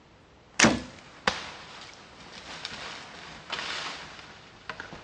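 A sharp, loud crack, then a lighter click, followed by a few seconds of rustling in dry leaves and snow as a white-tailed deer moves off out of sight.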